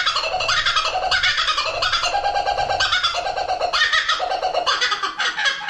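Kookaburra giving its laughing call: a rapid, unbroken run of cackling notes.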